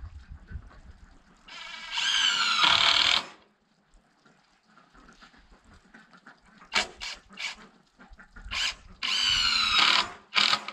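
Power drill driving screws into the 2x4 floor frame: two runs of about a second each, one about two seconds in and one near the end, the motor's pitch falling during each run. A few short wooden knocks fall between them.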